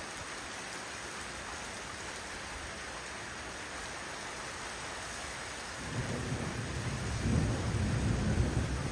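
Steady rain hiss. About six seconds in, a long low rumble of thunder builds and rolls on to the end.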